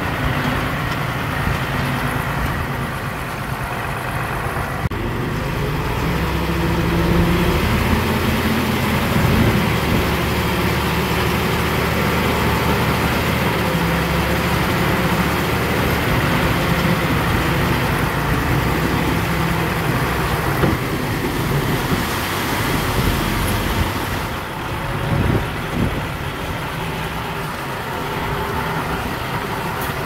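Diesel engine of heavy earthmoving machinery running steadily, working harder and rising in pitch from about six seconds in, with a few knocks near the end.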